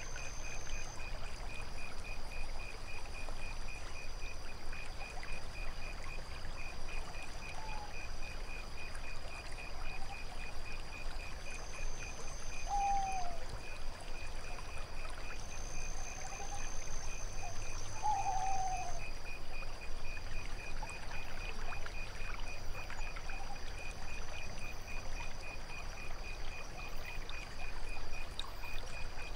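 Night ambience of water trickling and lapping, under a steady, fast-pulsing cricket chorus and a higher continuous insect trill that comes and goes in places. A few short, arching calls sound now and then.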